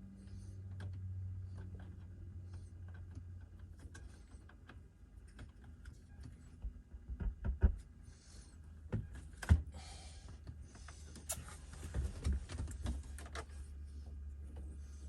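Steady low buzz from a 2011 BMW 328i's audio system, which the owner traces to the rear audio amplifier and suspects is a grounding fault. Scattered clicks and knocks of handling run over it, with the two sharpest knocks in the middle.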